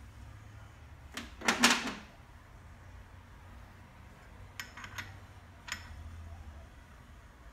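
Metal tools being handled while a cutting tool is swapped in a lathe's tool post: a short clatter of metal on metal about a second in, the loudest sound, then a few sharp clicks around five seconds in.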